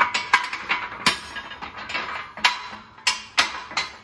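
Steel bed beams of a shop press being shifted and lowered by hand, knocking against the press frame: a string of irregular sharp metal clanks.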